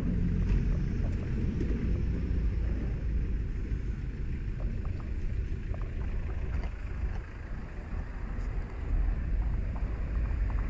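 Wind rumbling and buffeting on an action camera's microphone, with a few faint clicks.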